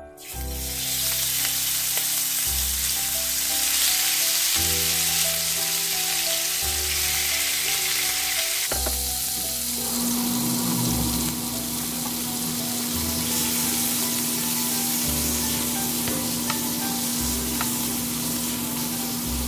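Pieces of beef chuck sizzling in hot olive oil in a stainless steel frying pan. The sizzle starts suddenly as the meat goes into the pan and stays strong and steady.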